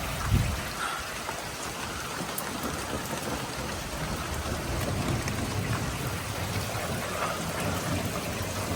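Steady hiss of light rain falling, with a short low thump about a third of a second in.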